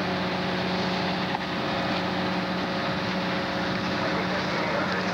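Fire engine's motor running steadily, a constant engine drone with an even rushing noise over it.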